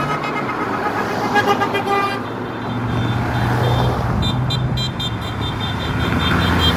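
Road traffic passing, with a car horn honked in quick repeated beeps, first about a second in and again in a rapid run of short toots from about four seconds in.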